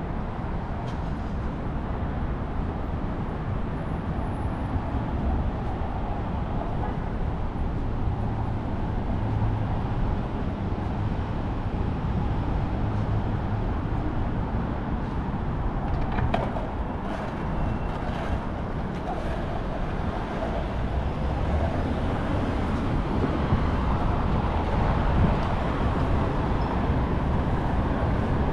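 Steady city street traffic noise: a continuous rumble of passing vehicles, with a few short clicks about halfway through.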